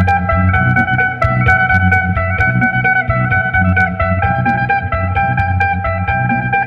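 Phin, the Isan lute, plucked in a quick run of melody notes over a steady low drone, played in the traditional Isan lai style.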